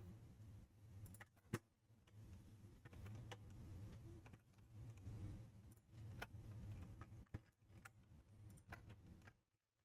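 Faint, irregular clicks of a computer mouse and keyboard, a dozen or so, with one sharper click about a second and a half in, over a low background hum.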